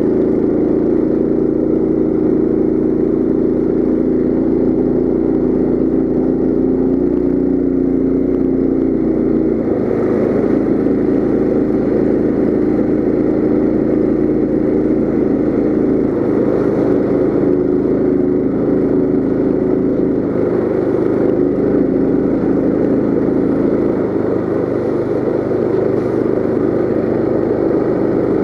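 Coleman CT200U mini bike's small single-cylinder four-stroke engine running steadily under load through its CVT, the pitch wavering a little and the note changing about ten seconds in.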